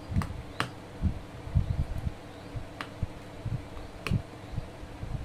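Small sharp clicks and taps of fingers and a small tool on the plastic and metal parts of an opened smartphone, with soft handling knocks against the desk mat, over a steady low hum.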